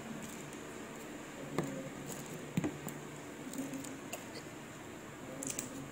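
Quiet eating sounds of balot: a metal spoon scooping from the boiled duck egg in its shell, with a few short soft clicks about a second and a half in, about two and a half seconds in and near the end.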